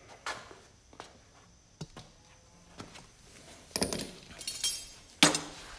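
Steel combination wrenches clinking against one another and the concrete floor. A few light clicks come first, then a ringing jangle about four seconds in, and a sharper metallic clank near the end.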